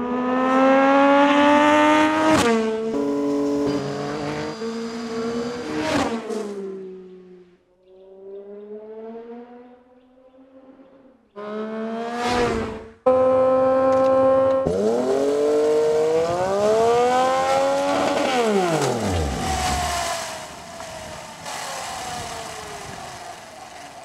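Street motorcycle engine revving and accelerating, its pitch climbing and dropping again and again in several short takes cut together. A pass-by near the end brings a steep drop in pitch as the bike goes away and fades out.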